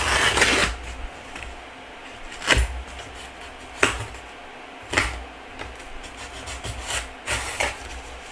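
A knife blade scraping and cutting at paper tape on a cardboard box: a rasping stroke at the start, then five short, sharp scrapes and knocks spread over the rest.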